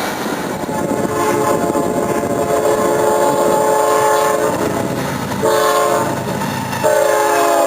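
Freight locomotive air horn sounding a long blast, a short blast, then another long blast over the rumble of the train, the last blast dropping in pitch.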